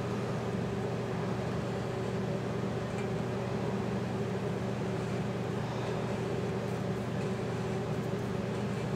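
A steady low mechanical hum with a few held tones, like a fan or appliance motor running without change.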